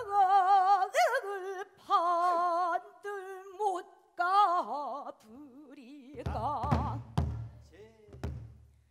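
A female pansori singer sings a sorrowful passage in the gyemyeonjo mode, holding long notes with a heavy, wavering vibrato. From about six seconds in, several strokes on the buk barrel drum sound beneath the voice.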